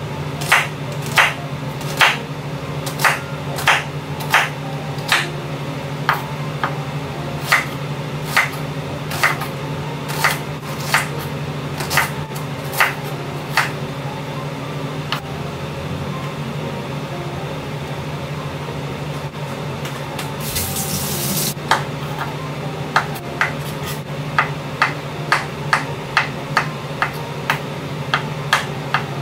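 Kitchen cooking sounds: sharp taps of utensils, about one a second at first and quickening to about two a second, over a steady low hum, with a brief hiss about two-thirds of the way through.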